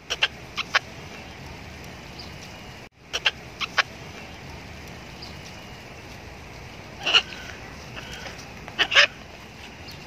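Blue-and-gold macaw giving short, sharp squawks in quick runs, then two louder, longer squawks near the end.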